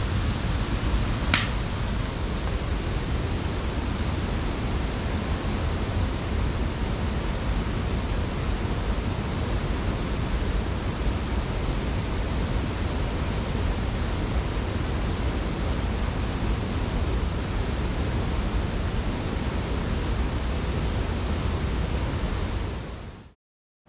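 Water pouring down a mountain waterfall, a steady rush of noise that fades out near the end.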